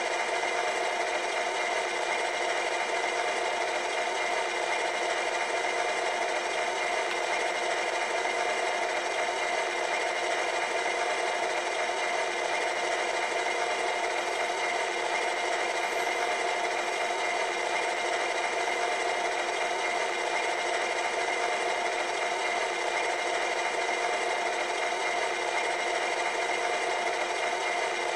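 HO-scale brass E9 model's LokSound 5 sound decoder playing a steady diesel engine idle through the model's tiny onboard speaker. The sound is thin, with almost no bass.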